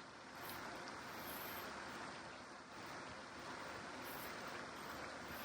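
Faint, steady rushing noise with no distinct event.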